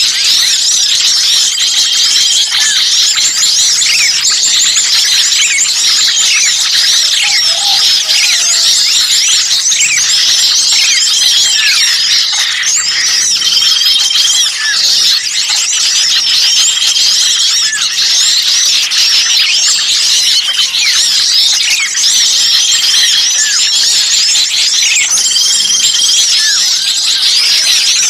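Bird-lure recording of many small songbirds calling noisily at once, the 'ribut' (agitated) calls used to draw birds in. It is a loud, dense mix of fast high-pitched chirps and squeaky trills, with a short steady whistled note coming back every few seconds, like a loop.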